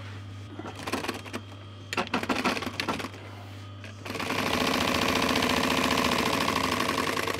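Industrial sewing machine stitching a zip onto cushion fabric: after a few scattered clicks while the work is lined up, it starts about four seconds in and runs at a fast, even stitch rate, under a steady low hum.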